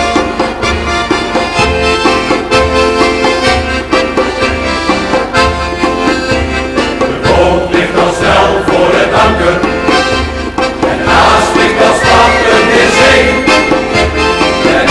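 Accordion music with a steady bass beat; the music grows busier from about halfway through.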